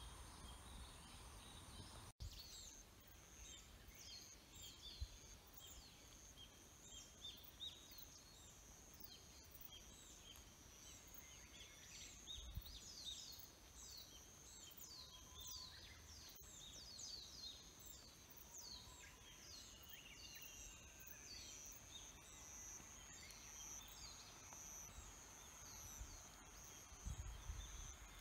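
Faint outdoor ambience of calling insects and birds: a steady high buzz with rapid, repeated falling chirps, and a few soft low bumps now and then.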